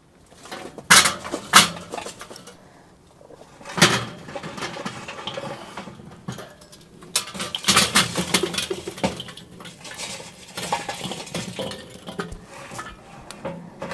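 Glowing charcoal briquettes being poured from a metal chimney starter into the charcoal baskets of a kettle grill: clinking and clanking of coals against metal. There are a few sharp knocks first, then longer bursts of clattering as each basket is filled.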